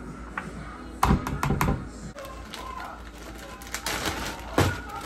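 Sharp plastic clicks and taps from handling a clear plastic container, in a quick cluster about a second in, then plastic bag crinkling and a single knock near the end.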